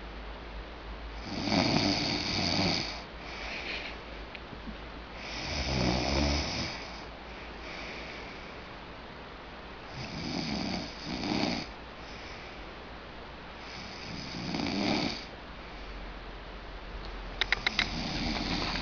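Snoring: loud rasping snores about every four seconds, four of them single and one a quick double snore. A quick run of sharp clicks comes near the end.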